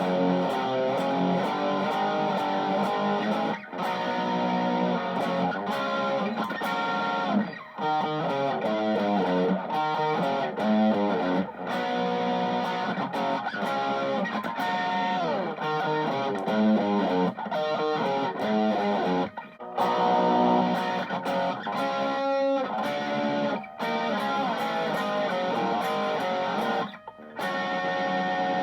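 Electric guitar played through a PAL800 Gold Over Drive V3 overdrive pedal: overdriven lead lines and fast runs, with a few short breaks between phrases.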